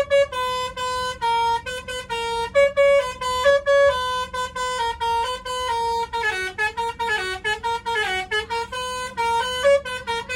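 Telolet bus horn playing a quick melody of short notes that hop between a few pitches, with wavering, sliding notes from about six to eight seconds in.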